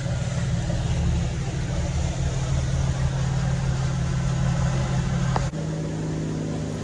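The 35-foot Caribbean sportfishing boat's diesel engines running under way: a steady low drone over a rushing hiss of wake and wind. About five and a half seconds in it cuts abruptly to a slightly quieter engine tone.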